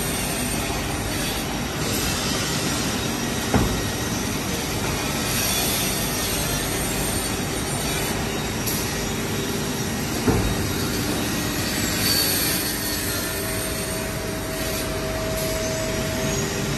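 Holztek CNC panel saw running, a steady mechanical noise with two sharp knocks, one about three and a half seconds in and one about ten seconds in. A steady whine comes in about two-thirds through and stops just before the end.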